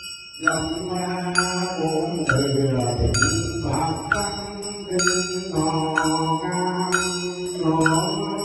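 Vietnamese Buddhist sutra chanting for the dead, a voice intoning steadily. A percussion instrument keeps a regular beat under it, a short ringing strike a little faster than once a second.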